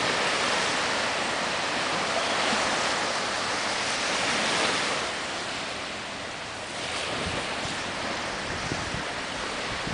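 Sea surf washing onto a sandy beach: a steady rush of waves that swells louder, then eases about six seconds in.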